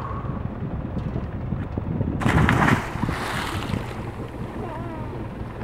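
A person jumping off the side of a sailboat into the sea: one loud splash about two seconds in, over steady wind noise on the microphone.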